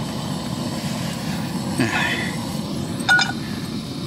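A steady low rush of wind and the burner of a lit canister camp stove. A little after three seconds comes a short metallic clink as a frying pan is set onto the stove's pot supports.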